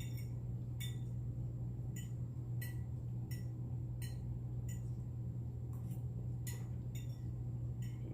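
Sharp little mouth clicks of someone chewing close to the microphone, about one or two a second and unevenly spaced, over a steady low hum.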